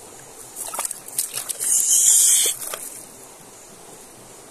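A freshly landed sabaleta thrashing and splashing: a few sharp slaps, then a loud hissing splash of water lasting about a second, about two seconds in.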